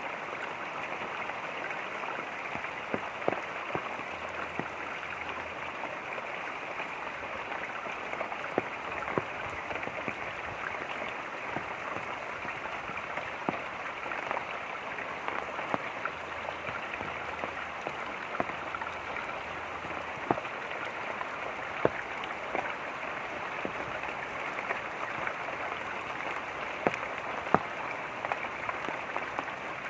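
Running water and light rain: a steady rush of water with scattered sharp taps of individual drops landing every second or two.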